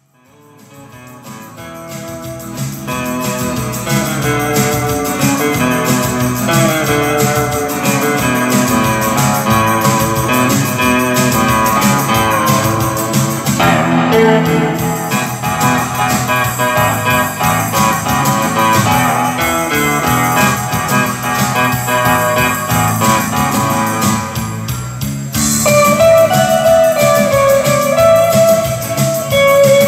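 Live instrumental music from an electric guitar and keyboard duo, fading in over the first few seconds. About 25 seconds in, a held melody line comes to the front.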